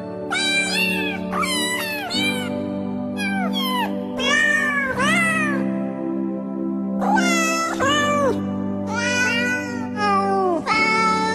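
Cats meowing again and again, short rising-and-falling mews often in quick runs, with a brief lull in the middle, over background music with sustained tones.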